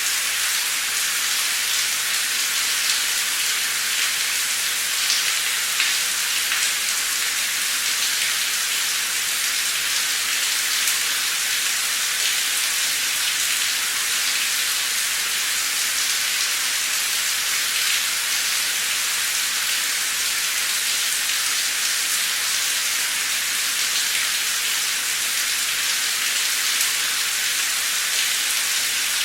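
Heavy rain pouring down steadily, a dense even hiss of drops striking a surface, with occasional louder individual drops.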